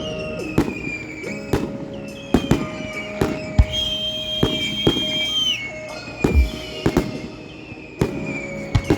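Aerial fireworks going off in an irregular run of sharp bangs, overlaid by high whistles that fall in pitch.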